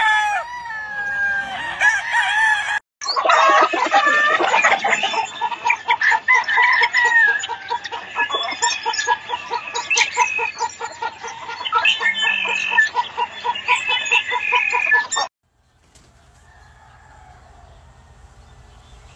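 Many gamefowl roosters crowing over one another, with clucking mixed in. The sound drops out briefly about three seconds in, then cuts off abruptly about three-quarters of the way through, leaving only a faint background.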